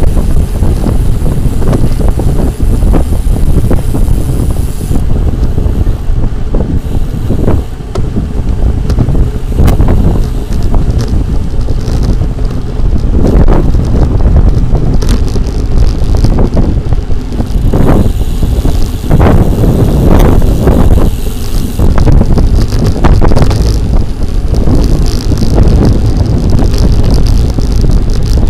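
Wind buffeting the microphone of a camera on a moving bicycle: a loud, constant low rush that swells and eases throughout.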